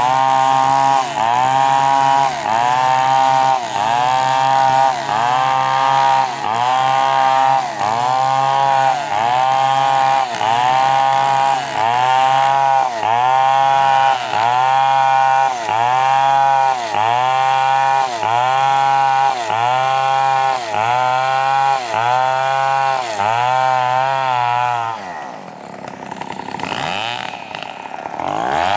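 Chainsaw cutting into a coconut tree trunk, its engine pitch dipping and recovering in a steady rhythm about once a second as the chain bites. About 25 seconds in, the engine drops sharply to a low, slow run and then climbs back up to speed near the end.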